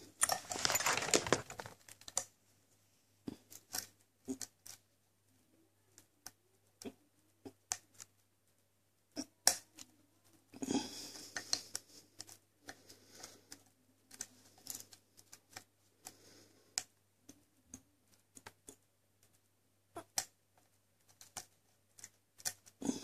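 Lock-picking sounds from an ASSA seven-pin lock: a steel pick scraping and clicking against the pins, with light tension from a pry-bar tension tool. Scattered small metallic clicks run throughout, with two longer scratchy passages, one about a second in and one around eleven seconds in.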